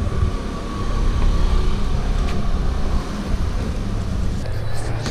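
Street traffic noise: a motor vehicle running nearby, a steady low rumble with a faint hum, and a few light clicks near the end.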